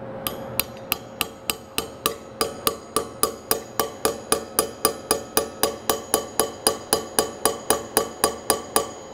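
Steady series of light hammer taps, about three a second, each with a short metallic ring, driving a 6 mm steel dowel pin part of the way into a tool plate on a rotary indexing table.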